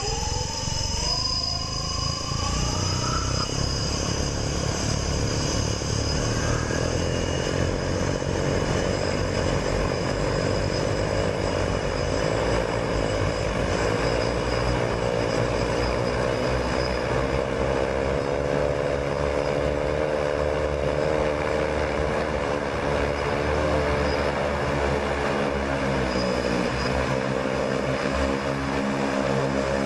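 Propellers and engines of a manned multicopter spinning up with a rising whine in the first few seconds, then running steadily as the machine hovers, several rotors together making a wavering drone.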